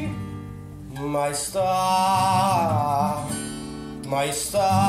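Sicilian folk song: plucked acoustic guitar, joined about a second in by a voice singing long held notes with vibrato, with a new sung phrase starting near the end.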